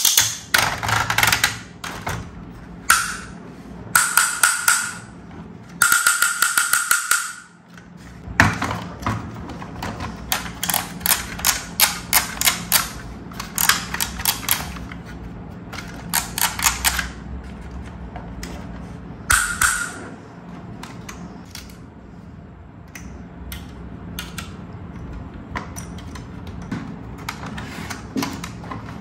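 Plastic ladder mechanism of a toy fire truck ratcheting in rapid clicks as the ladder is raised, swung and lowered by hand, in several bursts with short pauses, the clicking thinning out in the last third.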